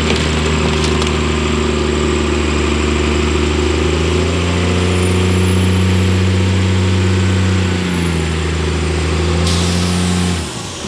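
Converted school bus's diesel engine pulling the bus slowly across soft dirt. Its pitch rises about four seconds in, drops back about eight seconds in, and the engine stops shortly before the end. A hiss starts just before it stops.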